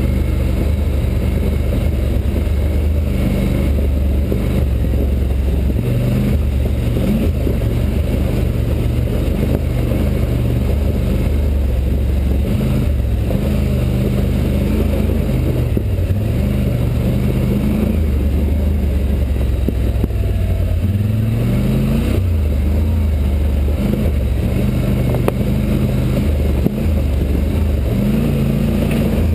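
Polaris Sportsman 850 XP ATV's parallel-twin engine running while riding, its pitch rising and falling over and over as the throttle is worked, with tyre noise on a rocky dirt trail underneath.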